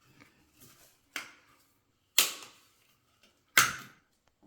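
Three sharp clicks from a pipe cutter at work, spaced about a second apart, each fading over about half a second, with faint ticks in between.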